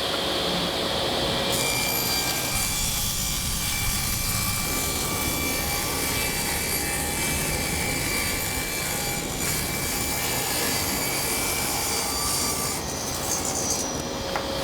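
Table saw running steadily while cutting wood.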